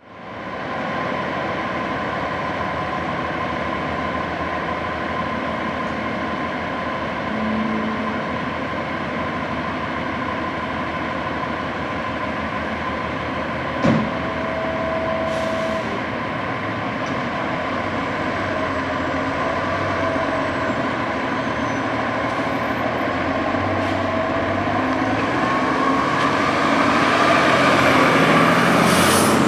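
Diesel engines of fire engines running at idle, with a single sharp burst about halfway through and a short steady tone just after it. Over the last few seconds the engine grows steadily louder as the fire engine pulls away.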